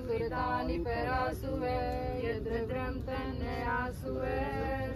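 A small group of men's, women's and children's voices chanting Vedic mantras together in a sing-song melody over a havan fire, with drawn-out held notes.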